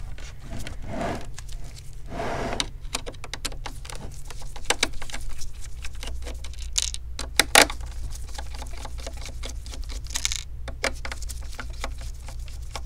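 Screwdriver turning screws out of the plastic back housing of an HP all-in-one computer: many irregular small metallic clicks and ticks, with a few short scraping rasps.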